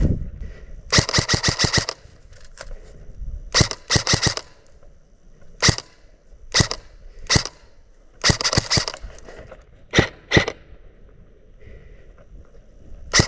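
Airsoft guns firing. There are three rapid bursts, about a second in, around three and a half seconds and around eight and a half seconds, and single shots in between and near the end.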